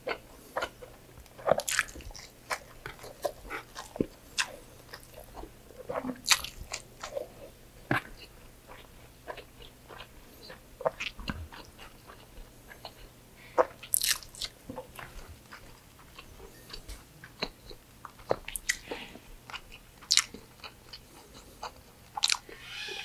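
Close-miked chewing of pork belly adobo and rice, with a steady run of irregular sharp wet mouth clicks and smacks.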